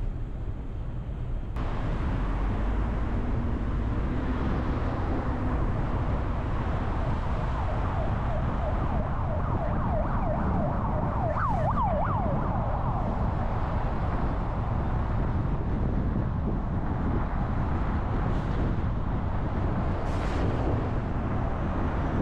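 Car driving through city traffic, with steady road and engine noise. Near the middle a distant siren wails up and down for a few seconds, quickening before it fades.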